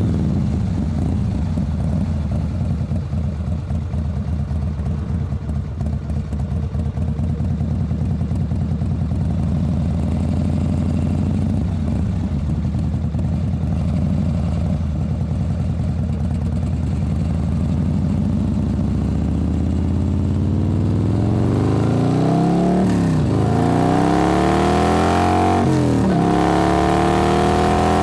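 Motorcycle engine running at a steady low speed for about twenty seconds. The engine note then rises, drops sharply twice and climbs again near the end.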